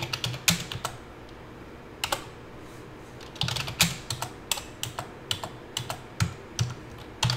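Typing on a computer keyboard: a few keystrokes, a pause of about two seconds with a single click, then a quick, steady run of keystrokes.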